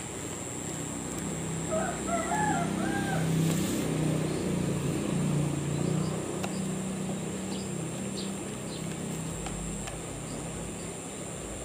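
A motor vehicle's engine hum passes by, swelling to its loudest about four to six seconds in and fading away near the end. About two seconds in there is a short bird call.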